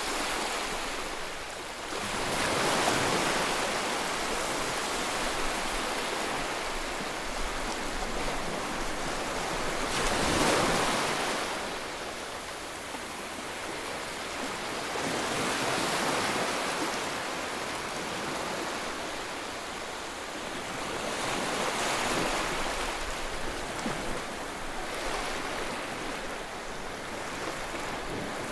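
Gentle sea waves washing against a rocky shore: a steady rushing wash that swells and ebbs about every six seconds.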